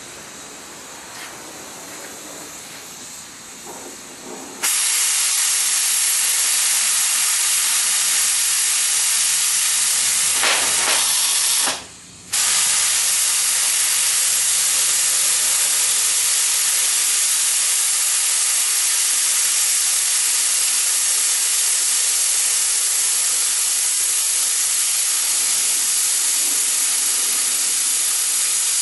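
Oxyacetylene cutting torch hissing steadily as it cuts a circle freehand in steel plate. The hiss starts suddenly and much louder about five seconds in, and drops out for about half a second near twelve seconds before resuming.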